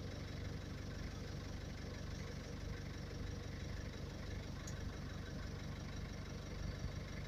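A vehicle engine idling steadily: a low, even rumble with a regular fine pulse.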